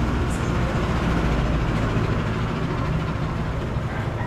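Road traffic: a motor vehicle's engine running with a steady low hum.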